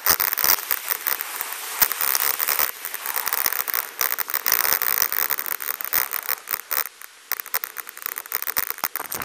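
Crackling hiss dotted with many small clicks and rustles on an ATC2000 action camera's microphone, the rubbing and handling noise of a camera being moved. It cuts off suddenly at the very end.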